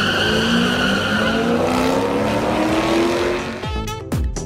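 A Corvette and a dark sedan accelerating away down a drag strip, their engines climbing steadily in pitch as they pull through the run. Near the end, music with heavy, evenly spaced bass-drum hits cuts in.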